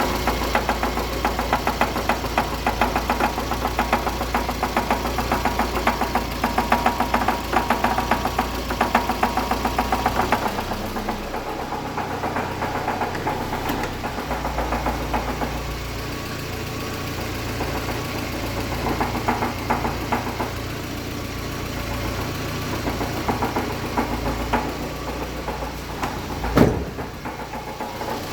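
Car engine idling with a rapid rhythmic rattling knock, a noise the owner suspects comes from the gearbox or clutch. The rattle eases about eleven seconds in, and there is one loud thump near the end.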